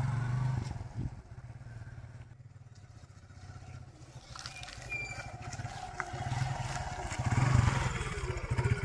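Motorcycle engine pulling away and fading into the distance, then growing louder again as the bike rides back and comes close near the end.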